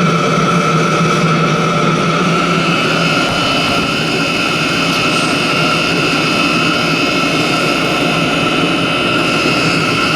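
Chinese diesel air heater running on a mostly engine-oil blend with diesel: a steady fan whine over the rush of the burner. About three seconds in a low hum drops away and a higher whine comes up.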